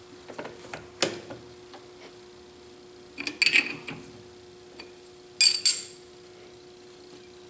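Small open-end wrench clinking metal on metal against the nut and dial at the end of a Clausing horizontal mill's feed screw as the nut is snugged: a few light clicks about a second in, a cluster of clinks around three and a half seconds, and two sharp ringing clinks at about five and a half seconds.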